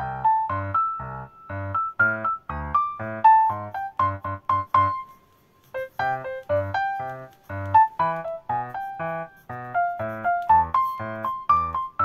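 Background music: a keyboard melody of short notes over a steady beat, pausing briefly about five seconds in.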